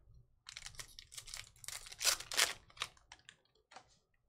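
A trading-card pack wrapper being torn open and the cards pulled out and handled: a run of irregular crinkling and clicking, loudest about two seconds in.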